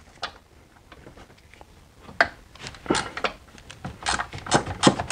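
Ratchet wrench clicking in short runs while loosening a 13 mm nut that holds a brake master cylinder to the brake booster. The clicks begin about two seconds in.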